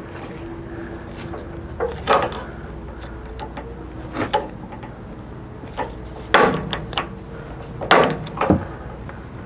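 Screwdriver working a worm-drive hose clamp on a rubber fuel hose at a steel gas tank: scattered sharp metal clicks and knocks, several of them in quick pairs.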